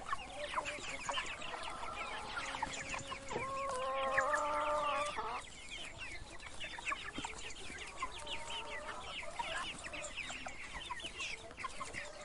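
A brood of chicks peeping nonstop, a dense stream of short, high chirps that fall in pitch. Lower, drawn-out clucking calls sound over them, loudest from about a second and a half to five and a half seconds in and again briefly near eight seconds.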